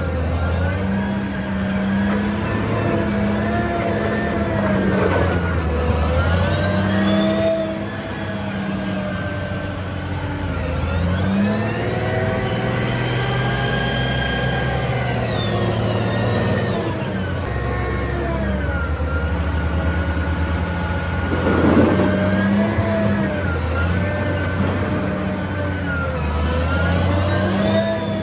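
Caterpillar 990 wheel loader's diesel engine heard from inside the cab, revving up and down again and again under working load, with a whine that rises and falls with the revs. A single clunk comes about three-quarters of the way through.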